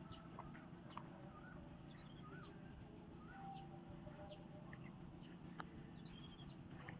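Faint bird chirps: short high peeps scattered through, with a few soft warbling notes, over a low steady background hum.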